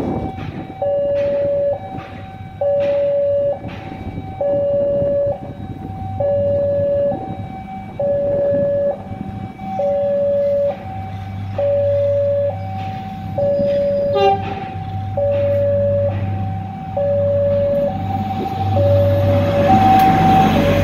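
Level-crossing warning alarm sounding a steady two-tone alternating ding-dong. From about halfway, a Prameks commuter train's engine hum grows as it approaches, and near the end the train passes close with rising wheel and rail rumble.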